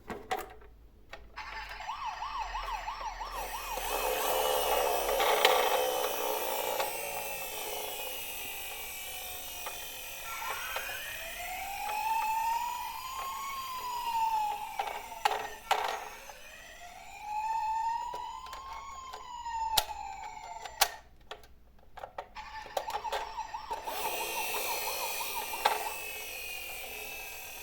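Emergency-vehicle siren sounds. First comes a fast warbling yelp. About ten seconds in it changes to two slow wails, each rising and falling over about five seconds. The fast warble returns near the end. A few sharp clicks fall between the wails.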